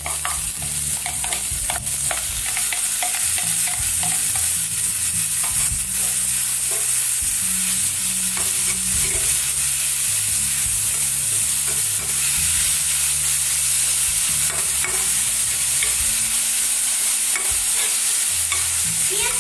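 Finely chopped onions sizzling as they fry in a hot stainless steel pan, stirred with a metal spatula that scrapes and clinks against the pan over and over.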